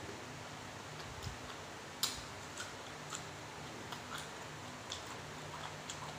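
A person chewing a leaf-wrapped mouthful of raw beef salad, with scattered soft wet clicks and smacks of the mouth and one louder smack about two seconds in, over a faint steady low hum.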